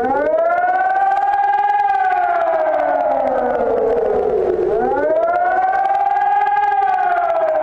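Emergency siren wailing, coming in suddenly: the pitch climbs quickly, holds briefly, then slides slowly down before climbing again about five seconds later.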